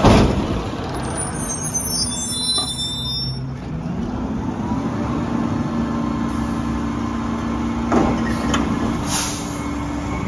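Mack LR garbage truck with a sharp bang at the start and a high squeal for a couple of seconds after. About four seconds in its engine revs up and holds a steady high note. A second bang comes near eight seconds, followed by a short air hiss.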